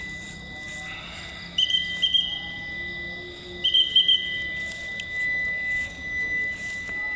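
Two short, trilling whistle blasts about two seconds apart, over a steady high-pitched tone.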